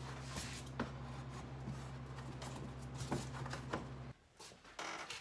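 Faint scattered taps and rustles as a preformed shower niche is handled and pressed into its opening in the wall board, over a steady low hum that cuts off abruptly about four seconds in.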